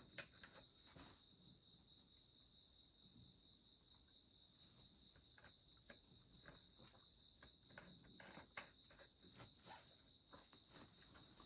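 Near silence: a faint, steady high-pitched trill of crickets, with a few soft clicks.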